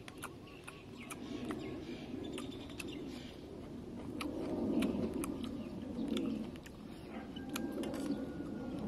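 A metal spoon and fork clinking and scraping on a metal plate in irregular, sharp ticks, over a low rumble that swells and fades twice. Faint bird chirps come and go.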